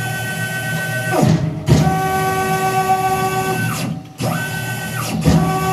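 Tormach PCNC 1100 X-axis stepper motor jogging the mill table. It gives a musical whine in several held pitches, with the pitch sweeping down and back up as each move stops and starts. It does not sound right: the motor's stepper driver is failing.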